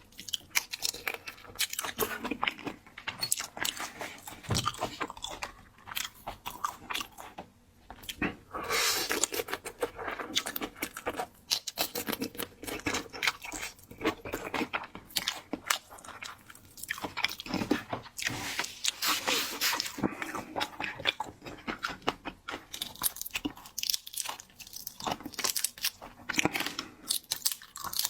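Close-miked eating of seafood: steady chewing and crunching, with many small irregular crackles and mouth sounds.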